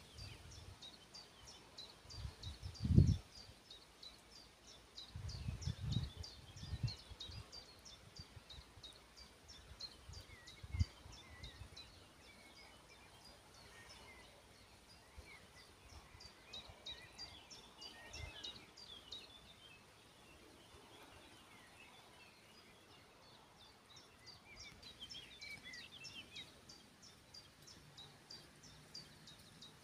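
Birds singing: a fast run of high, thin ticking notes, about four a second, with scattered chirps, and a few low gusts of wind on the microphone, the strongest about three seconds in.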